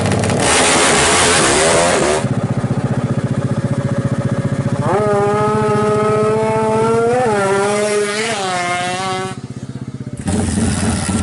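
Yamaha Jupiter MX King bored up to 321 cc, a single-cylinder four-stroke with an open racing exhaust, run hard at full throttle for about two seconds. It then idles with a lumpy beat, rises to high revs and is held there, blipped higher twice before dropping back.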